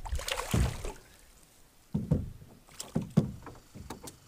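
Knocks and thumps of gear and bodies against a canoe's hull as the anglers move about fishing from it, several separate bumps with the loudest a little after three seconds in, after a brief rushing noise near the start.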